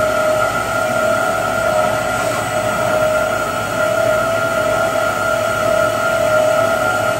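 Walter Helitronic Power CNC tool grinder running under power: a steady whine over a low hum that does not change.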